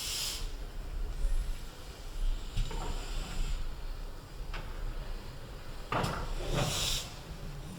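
GWR Collett pannier tank locomotive no. 6412 at work, with short bursts of steam hiss at the start and again about six seconds in. Scattered knocks and a low rumble run beneath the hiss.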